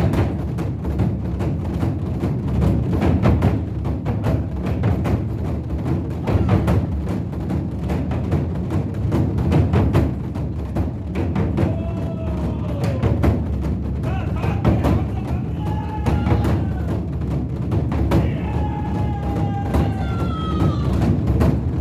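Korean buk drums beaten in a rapid, dense rolling rhythm. From about halfway through, a few drawn-out tones that slide up and down sound over the drumming.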